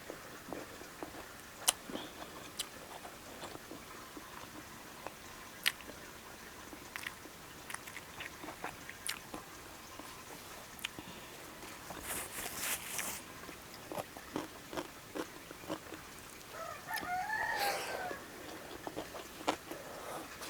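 Close eating sounds: chewing with many small clicks and smacks. A rooster crows once in the background near the end.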